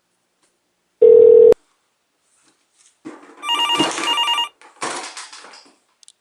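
A short steady beep, then a telephone ringing: two rapid warbling trills from about three and a half seconds in, trailing off into a fainter rattle.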